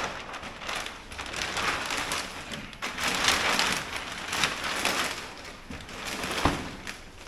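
Silver metallic plastic packaging bag crinkling and tearing as it is ripped open and pulled off a car mat, in irregular crackling surges. One sharp thump about six and a half seconds in.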